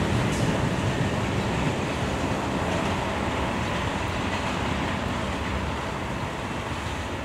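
Diesel locomotive running as it pulls away down the line, a steady rumble and rail noise slowly fading as it recedes.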